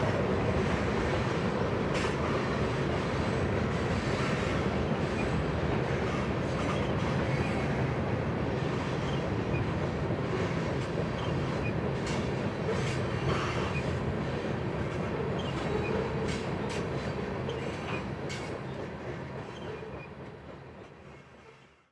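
Freight train cars rolling across a steel truss bridge: a steady rumble of wheels on rail with scattered sharp clicks, fading away near the end.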